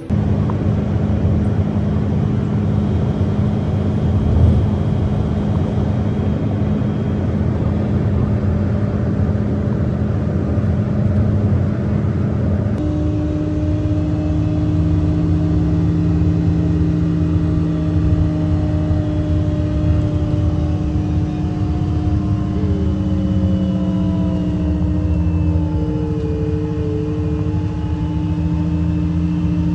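A motor vehicle running at a steady speed, a loud constant drone with steady low tones. About thirteen seconds in it cuts to a similar drone at a slightly higher pitch.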